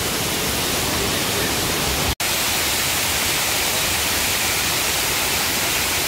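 Waterfall: a steady, even rush of falling water, broken by a split-second gap about two seconds in.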